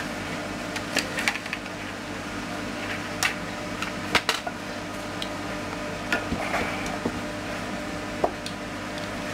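Scattered light clicks, knocks and metallic clinks as a Hatsan Gladius air rifle and small tools are handled on a workbench, with a steady low hum behind.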